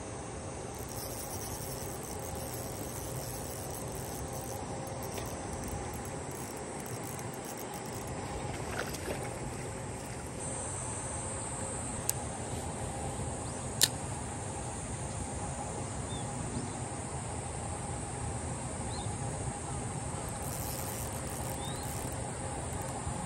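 Steady outdoor ambience of insects buzzing high and continuous, over a steady low hum. Two sharp clicks come about two seconds apart midway through.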